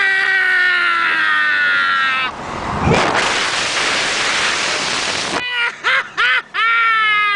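Long drawn-out wailing cries, each swooping up and then sinking slowly in pitch. Between them comes about three seconds of even rushing noise, then three short rising yelps near the end, before another long wail begins.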